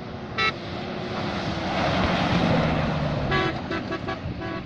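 An off-road rally jeep passes at speed, its engine and rushing noise swelling to a peak about two seconds in and then easing. There are short horn toots once about half a second in and several times near the end.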